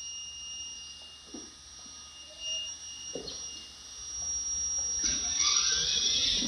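Child's battery-powered ride-on toy scooter: a steady high electronic tone, then a louder, busier sound from about five seconds in as the scooter drives up close.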